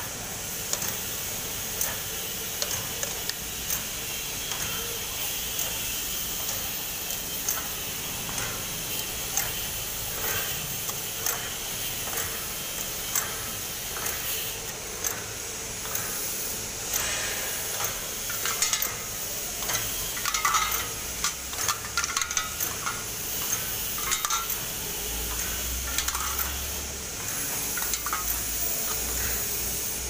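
Semi-automatic tube filling and sealing machine running: a steady hiss with frequent irregular metallic clicks and clatter, busiest a little past the middle.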